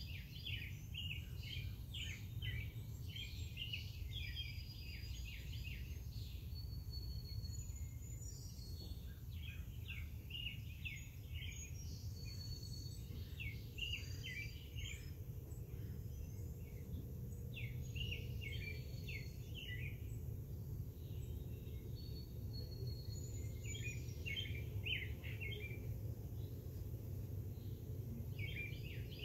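Several songbirds chirping and singing in repeated quick phrases, with short high whistled notes, over a low steady rumble.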